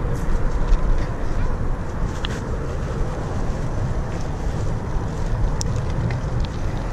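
Wind rumbling over the microphone of a camera on a moving bicycle, mixed with tyre noise on the trail, and a few light ticks.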